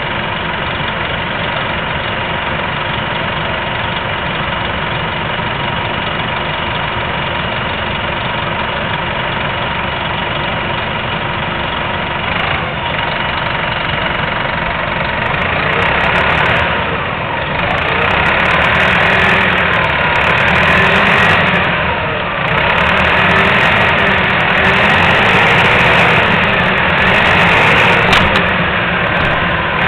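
Nova Bus RTS transit bus's diesel engine idling steadily, then pulling away a little past halfway, getting louder and rising and falling in pitch several times as it gathers speed.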